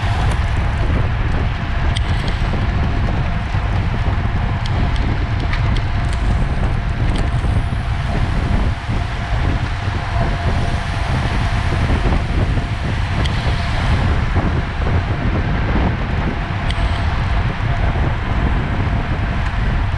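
Wind buffeting the microphone in a continuous low, fluttering rumble over a steady rushing road noise, with a few faint clicks.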